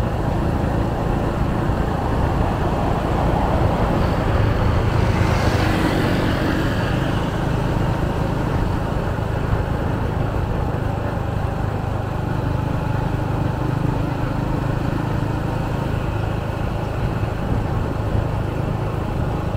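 Street traffic noise: a steady hum of passing motorbikes and cars, with one vehicle going by louder about five seconds in.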